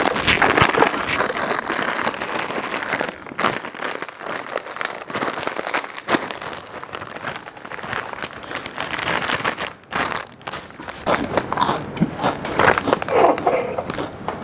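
Plastic chip bag being crinkled and rustled loudly, a dense crackling that goes on with a couple of brief pauses.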